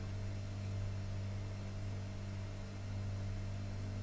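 Steady low electrical hum with a faint hiss, unchanging throughout; no pouring of water stands out from it.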